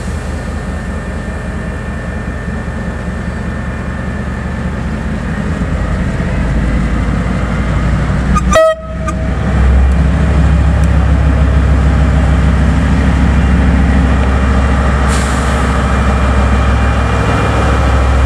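KiwiRail DL-class diesel-electric locomotive leading a freight train, its engine drone growing louder as it approaches and passes close by. A short horn toot sounds about halfway through.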